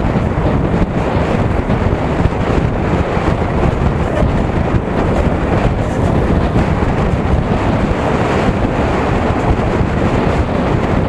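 Steady, loud wind noise buffeting the microphone of a camera on a moving motorcycle, a deep rumble with road noise mixed in.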